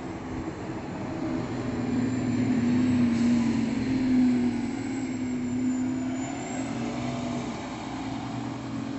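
City bus driving past and away: a steady engine drone that builds over the first few seconds, is loudest about three to four seconds in, then slowly fades as it recedes.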